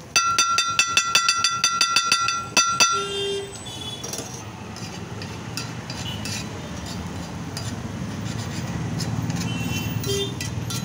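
Steel spatula chopping the egg bhurji against a large iron tawa: rapid ringing metal strikes, about five a second, for the first two and a half seconds. Then the strikes give way to lighter, scattered clicks as the egg is turned on the plate.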